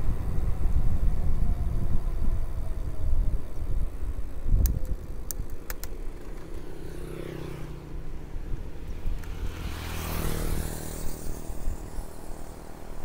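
Wind buffeting the microphone of a handlebar-mounted action camera, with tyre and road rumble, as a mountain bike is ridden along a paved road; a few sharp clicks come about five seconds in. In the second half a motor vehicle passes, swelling and fading.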